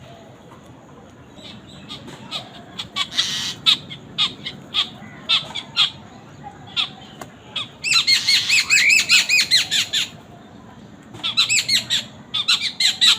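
Birds calling: scattered short squawking calls, then two fast runs of quick rising-and-falling calls, one about eight seconds in and another from about eleven seconds on.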